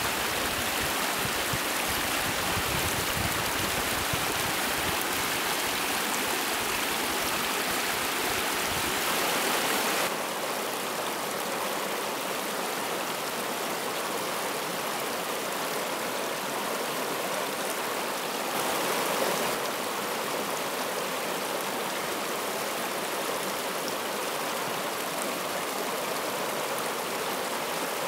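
Forest stream running steadily, an even rush of water with no let-up, a little quieter from about ten seconds in.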